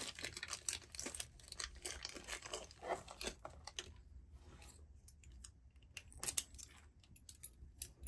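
Clear plastic zip bag crinkling and rustling as a small lock is worked out of it, with light clicks of the lock being handled. The rustling is dense for the first few seconds and then thins to scattered clicks.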